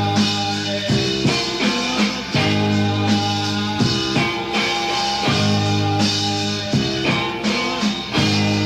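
Rock band music with held guitar chords that change about every second and a half, over drum hits.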